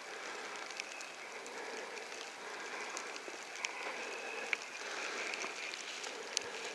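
Steady faint hiss of outdoor air noise with a few small sharp ticks scattered through it.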